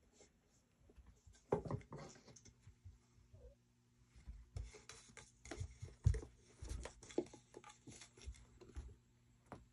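Scattered light knocks, taps and scratchy rustles of cats playing on carpet, batting a small empty plastic catnip bottle about. There is a louder knock about a second and a half in, and a busier run of taps from about halfway on.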